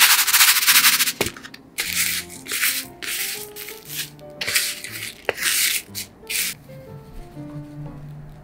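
Dry panko breadcrumbs rustling and crunching in a foam tray as imitation crab sticks are rolled and pressed into them by hand, in a run of short bursts that stop after about six and a half seconds. Soft piano music plays underneath.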